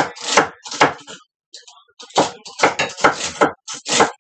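Kitchen knife chopping vegetables on a wooden cutting board: a few chops, a pause of under a second about a second in, then a quicker, uneven run of about ten chops.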